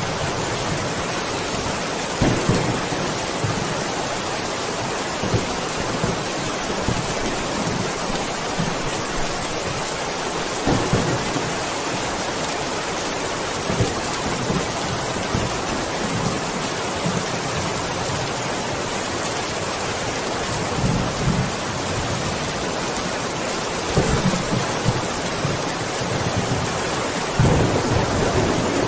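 Steady heavy rain hiss in a thunderstorm. Low rumbles of thunder swell up several times, the strongest near the end.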